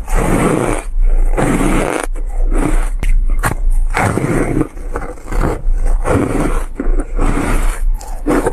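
Close-miked crunching and chewing of frozen shaved ice. The loud crunches come one after another with short breaks between them.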